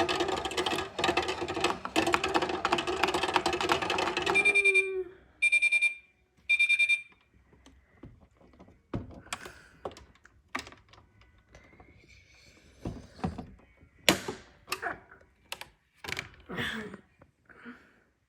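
Toy microwave's electronic running hum, which stops about four and a half seconds in, followed by three short high beeps signalling the cycle is done. After that come scattered clicks and knocks of plastic toy parts being handled.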